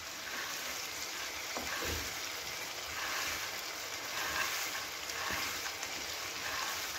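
Chicken and spice masala frying in oil in a pot, a steady sizzle with a few faint knocks.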